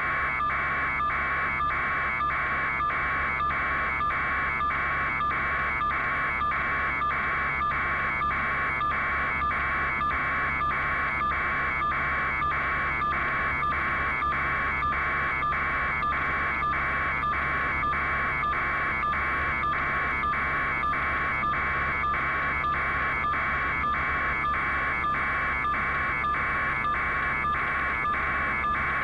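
Rapid electronic beeping, evenly spaced at about two beeps a second, with a steady low hum beneath.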